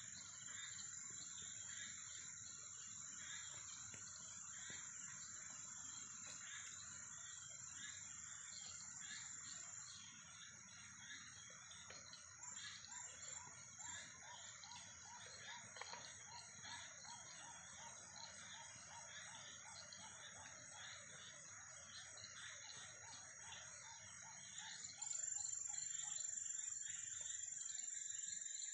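Faint night chorus of crickets: a steady high-pitched trill over a dense layer of quick chirps. The trill dips about ten seconds in and gets louder again near the end.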